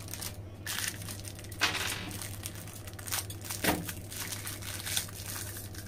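Thin plastic packet crinkling and rustling as a small toy whistle is pulled out of its bag by hand, in irregular bursts with a couple of louder crackles, over a steady low hum.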